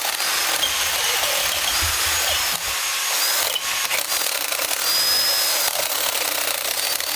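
Cordless drill boring a hole through a steel box-section bar clamped in a vice, running steadily and easing off briefly a couple of times.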